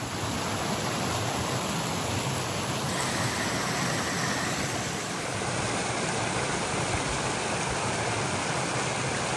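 Running water rushing steadily, an even, unbroken noise with no pitch to it.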